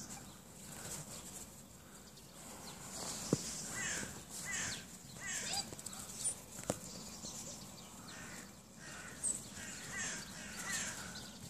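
A dhole pack calling: many short, high-pitched calls that fall in pitch, scattered and overlapping through most of the stretch. There are a couple of sharp knocks, the loudest about three seconds in.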